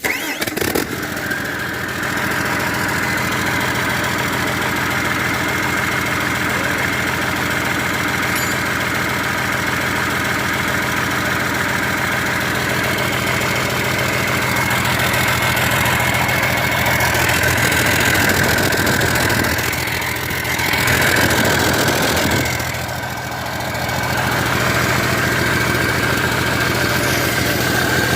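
Cat 320D2 excavator's diesel engine starting and then running at a steady idle, with a brief change in its note about two-thirds of the way through.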